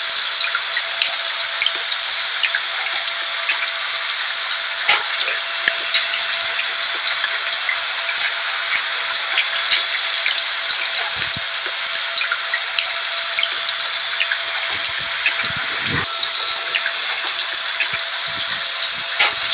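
Steady rain with scattered drop ticks, mixed with a vacuum cleaner running at one constant pitch.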